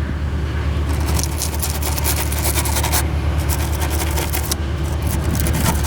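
Irregular scraping and rubbing of hands and fingers feeling around the metal and plastic underside of a walk-behind mower, over a steady low rumble.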